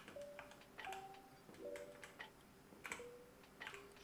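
A handful of faint, irregularly spaced key clicks from a Redragon Fizz K617 mechanical keyboard as keys are pressed to cycle its RGB lighting effects. Soft background music with short held notes plays under them.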